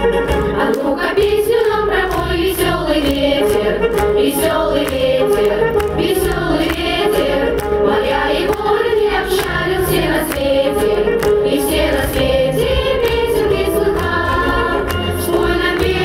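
Children's choir singing over recorded backing music played through stage loudspeakers.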